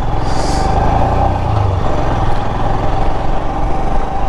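Motorcycle engine running steadily at highway cruising speed, mixed with wind and road rush on the rider's microphone. A short hiss comes about half a second in.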